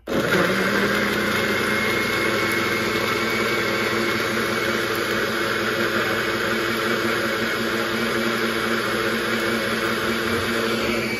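An engine running steadily: an even hum with several held tones over a rushing background, starting abruptly and not changing.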